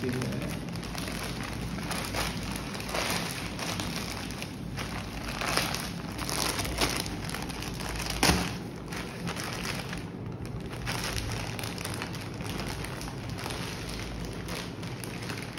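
White plastic courier mailer crinkling and crackling as it is pulled and torn open by hand, with one sharp rip about eight seconds in. The bag does not open cleanly.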